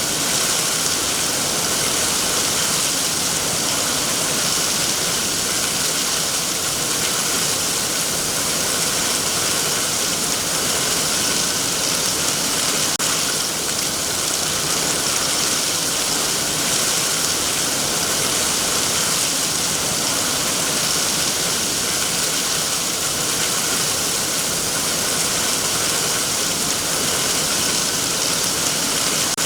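Heavy rain falling on trees in a steady, even hiss.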